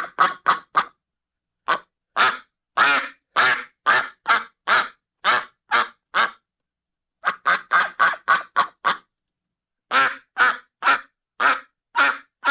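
Duck quacking repeatedly in runs: a quick burst of short quacks at the start, then steadier quacks about two a second, another quick run of rapid quacks in the middle, and more steady quacks near the end, with dead silence between each call.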